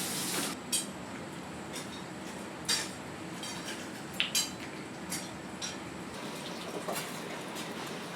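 Scattered clinks and taps of kitchen utensils and dishes, about eight short knocks spread unevenly, over a steady kitchen background noise.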